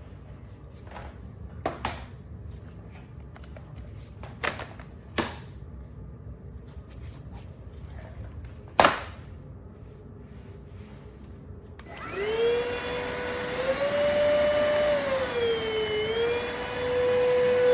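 A few sharp clicks of handling, then about twelve seconds in the iwoly C150 cordless stick vacuum's motor starts and runs with a steady whine. Its pitch rises, dips briefly, then settles.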